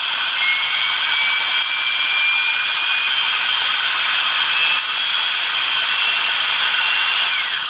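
Cordless drill motor running steadily on power from a laptop charger cable wired to its terminals, with a thin whine that rises slightly early on; it winds down and stops near the end.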